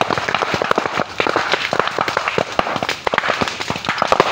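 Large fire burning through bamboo, with loud, dense, irregular crackling and sharp popping, many pops a second.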